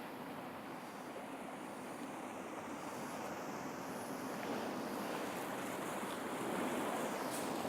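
Sea surf washing steadily along a rocky shore, a constant rushing noise that swells a little toward the end.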